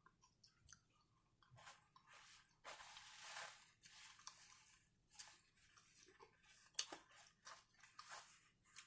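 Faint, close-miked chewing of a chicken and cheese quesadilla, coming in irregular bursts with a sharp click about seven seconds in.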